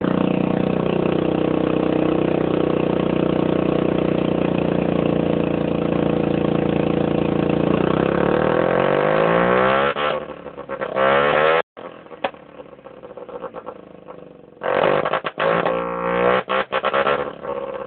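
Mazda RX-7 FC3S's turbocharged 13B two-rotor rotary engine running. It holds steady at raised revs for about eight seconds, the pitch sliding as the revs fall away, then settles to a quieter idle and is blipped several times in quick succession near the end.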